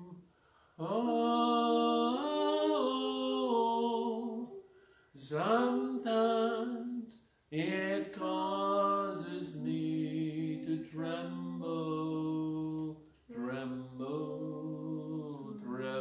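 A single voice singing unaccompanied, slow held notes that step from pitch to pitch, in four phrases with short breaths between them.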